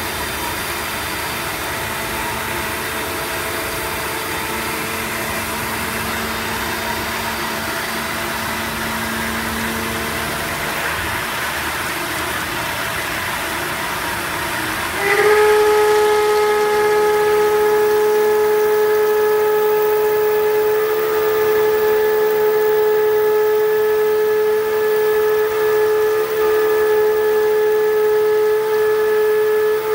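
CNC mill spindle running a 10 mm three-flute carbide end mill through aluminium under flood coolant: a steady cutting and coolant hiss. About halfway through, a loud steady whistle sets in and holds, dipping briefly a few times near the end. This is typical of a long-series end mill chattering in the cut.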